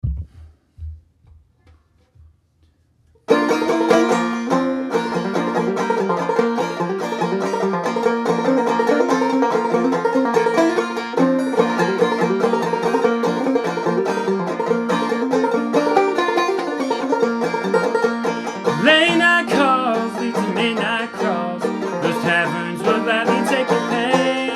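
A few faint low thumps, then about three seconds in a clawhammer banjo starts up abruptly, playing a brisk instrumental intro; near the end a second part with sliding notes joins in.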